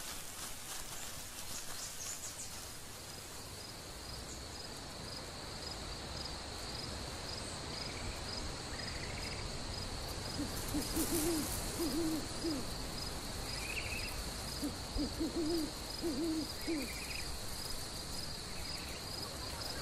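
An owl hooting in two runs of short, low hoots, one about halfway through and one a few seconds later, over a steady high-pitched insect trill of night ambience.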